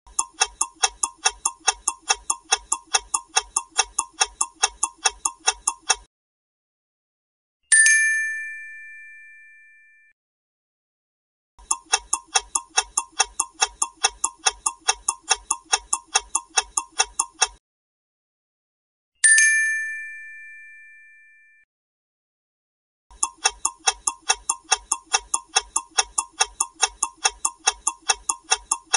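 Countdown-timer sound effect: fast clock-like ticking for about six seconds, then a single bell ding that rings out. The pattern repeats, with three runs of ticking and a ding after each of the first two.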